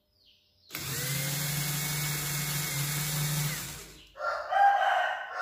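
Cordless-drill motor driving a miniature RC truck chassis's two-speed gearbox, starting up with a rising whine once the battery is connected, running steadily for about three seconds, then winding down. A louder pitched sound follows near the end.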